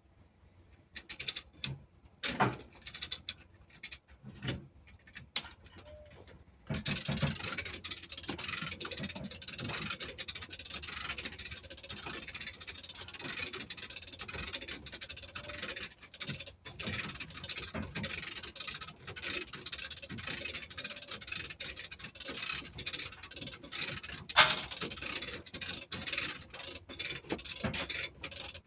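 A lever chain hoist (come-along) being ratcheted and tensioned on steel chain: scattered clicks and knocks at first, then from about seven seconds in a continuous rasping, clicking metal scrape, with one sharp knock near the end.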